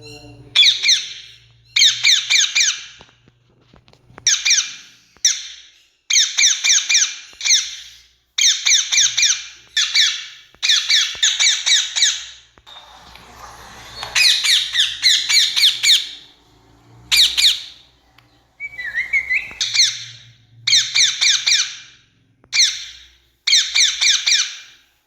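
Rose-ringed parakeet (Indian ringneck) giving harsh, shrill squawking calls in repeated bursts, each about a second long with short pauses between.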